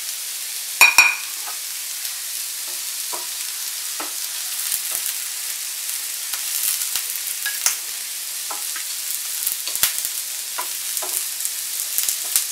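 Whole spices and chopped onions sizzling in a nonstick frying pan, with a steady hiss and scattered scrapes and taps as a wooden spatula stirs them. A sharp ringing clink about a second in.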